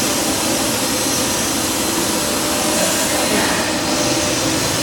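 Steady whirring noise of running machinery, even throughout with no starts or stops.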